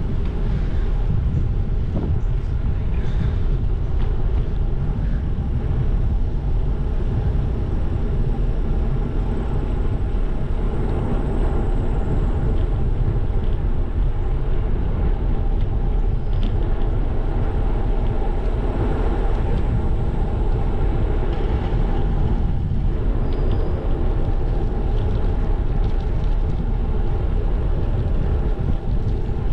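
Steady rushing noise of a moving bicycle: wind buffeting the camera's microphone, with tyres rolling on asphalt.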